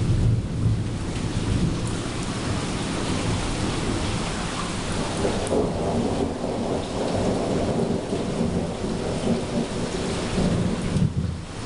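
Steady rain falling, with thunder rumbling low at the start and rolling in again from about halfway through.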